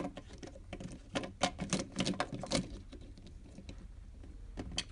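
Quick small clicks and rustles of plastic ink tubes and cartridges being handled as the tubes of a continuous ink supply system are moved in their metal holder. The clicks are busiest in the first two and a half seconds, thin out, and end with one sharper click.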